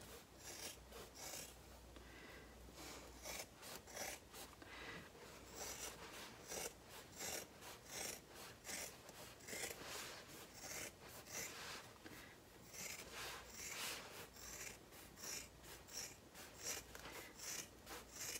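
Fabric scissors snipping again and again, trimming the seam allowance of the sewn bag's layered exterior and lining fabric: a faint, uneven run of short cuts, a couple or more each second.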